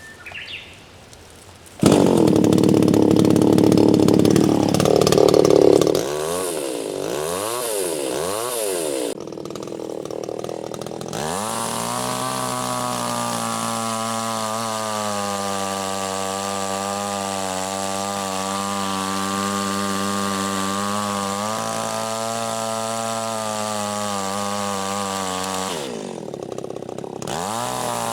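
Two-stroke chainsaw. It comes in loudly about two seconds in and revs up and down several times. It then runs steadily at high speed for a long stretch, drops briefly near the end, and revs back up.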